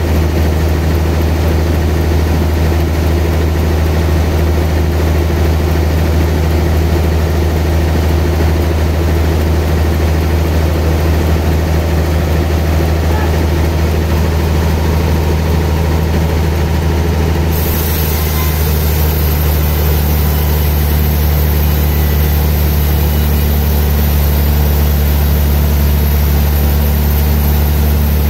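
Large log band sawmill running with a steady low hum. About two-thirds of the way in a brighter hiss joins as the blade cuts into a big trembesi (rain tree) log.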